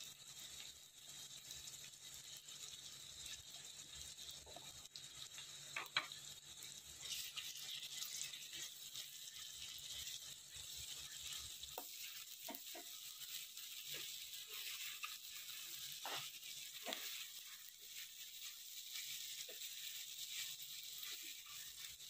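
Sliced onions and dry fish frying in oil in a kadai, with ginger-garlic paste just added: a faint, steady sizzle. From about halfway, a metal spoon scrapes and taps against the pan as the mixture is stirred.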